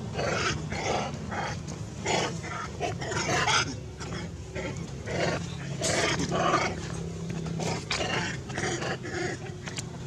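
Macaques giving short, harsh calls in quick irregular succession, two or three a second.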